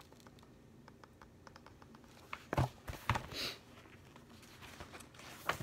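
Quiet room with a few light taps and clicks, the kind made by handling a book. Two sharper taps come about two and a half and three seconds in, and another near the end.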